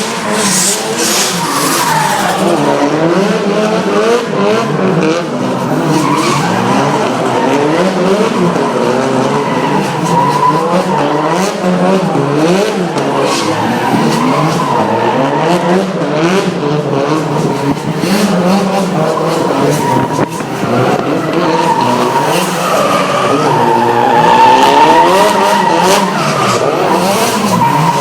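Drift cars' engines revving up and down over and over, with tyres squealing as the cars slide.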